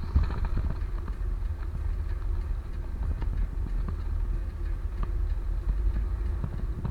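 Steady low rumble of a moving vehicle on the road, with scattered small knocks and rattles.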